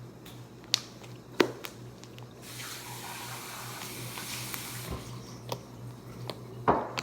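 Water running for about two and a half seconds, like a tap turned on and off, with a few sharp clicks before and after.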